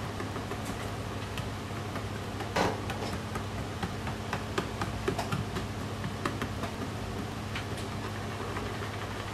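Wire whisk beating a runny yellow mixture in a bowl, its wires clicking and tapping irregularly against the bowl. One louder knock comes about two and a half seconds in, over a steady low hum.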